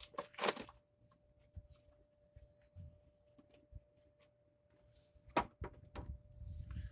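Light handling noises of a new air filter being fitted to a lawn mower engine: scattered clicks and rustles, with a louder knock about five and a half seconds in.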